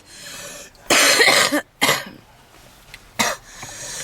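A woman's harsh smoker's cough: three loud coughs, about a second in, just before two seconds and just after three seconds, with heavy wheezing breaths between them.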